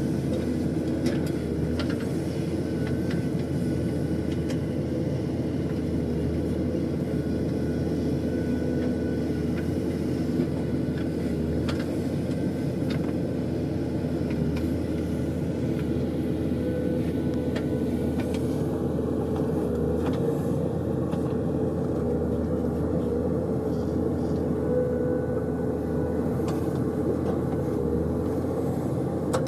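Diesel engine of a JCB 3DX backhoe loader running steadily, with a few short metallic knocks now and then.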